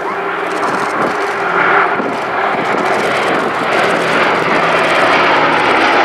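Boeing B-17G Flying Fortress's four Wright Cyclone radial engines running in a flypast, the drone growing steadily louder as the bomber approaches.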